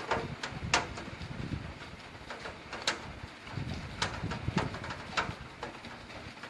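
Scattered raindrops ticking sharply on a hard surface during a thunderstorm, a few drops a second, over a faint low rumble between thunder peals.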